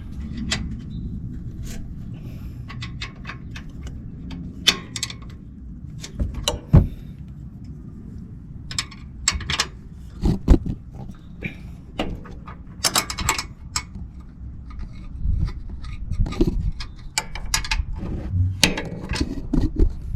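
Scattered metal clicks, clinks and scrapes of a 12 mm box wrench working the ABS wire bracket bolts, over a steady low rumble.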